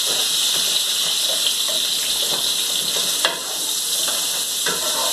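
Frozen Brussels sprouts sizzling in oil in a skillet over a gas burner on high heat, a steady hiss, with a few light knocks and one sharp click a little after three seconds in.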